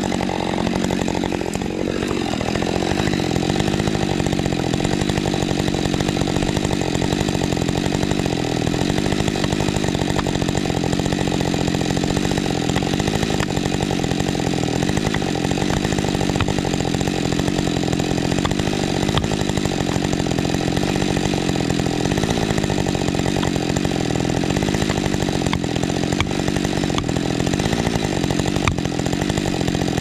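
Husqvarna 550 XP Mark II two-stroke chainsaw running continuously at high revs, its pitch dipping and recovering again and again as it works through wood.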